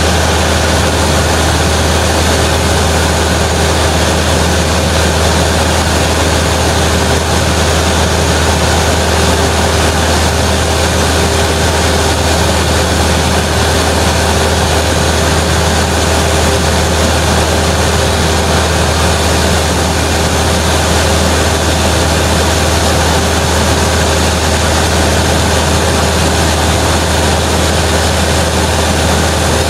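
Cessna 172's piston engine and propeller droning steadily in cruise flight, heard from inside the cabin with a constant rush of air. The sound is loud, low and unchanging throughout.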